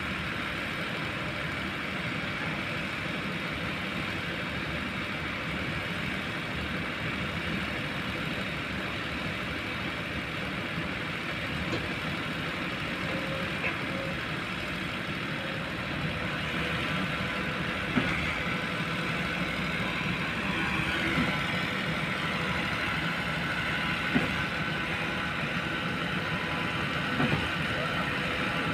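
Diesel engine of a Kobelco long-reach excavator running steadily, getting a little louder about halfway through, with a few sharp knocks in the second half.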